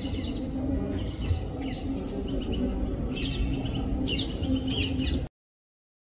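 Small songbirds chirping, a scatter of short high calls and quick sweeps over a steady low background rumble. The sound cuts off abruptly about five seconds in.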